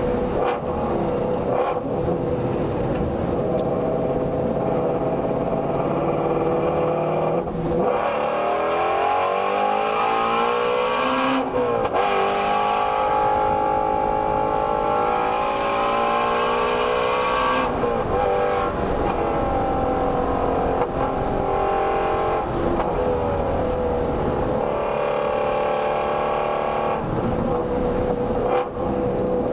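Ford Shelby GT350's flat-plane-crank 5.2-litre V8 recorded through an exhaust microphone, running at high revs under full throttle. About eight seconds in the note drops away as the car slows, then climbs steeply back up toward about 7,500 rpm in second gear. The pitch changes again with gear changes and lift-offs later on.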